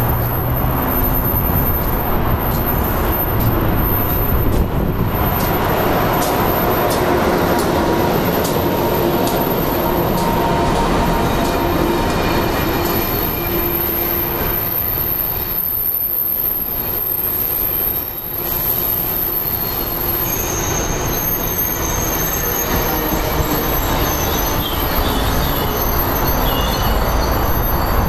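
Amtrak electric-locomotive train with Amfleet coaches passing through the station at speed: a loud, steady rumble of wheels on rail with sharp clicks over the rail joints early on, then thin high wheel squeals in the second half as the last cars go by.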